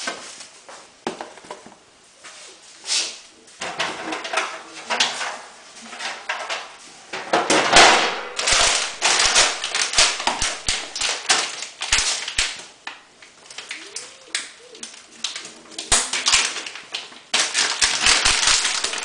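Close, irregular rustling, crackling and clicking of things being handled, with a louder, denser stretch of rustling about seven to nine seconds in and again near the end.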